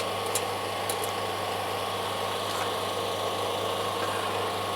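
A steady low machine hum with a constant pitch, with a few faint light clicks over it.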